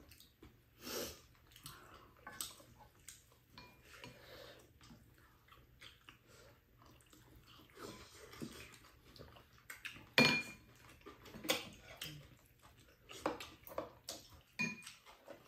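Eating at a table: spoons and chopsticks clinking and scraping against ceramic bowls and a shared frying pan, with quiet chewing. The clinks come scattered, the sharpest about ten seconds in and several more near the end.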